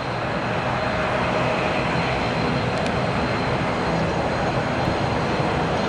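Embraer ERJ-170's twin CF34-8E turbofan engines running as the airliner lines up on the runway: a steady jet roar with a thin, even whine, growing a little louder in the first second.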